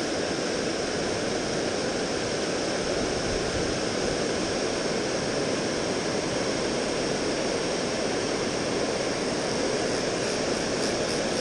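Steady rushing roar of water pouring down a lake spillway into the churning pool below.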